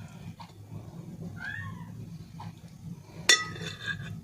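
Domestic cat giving a short meow about a second and a half in, followed by a sharp clink a couple of seconds later.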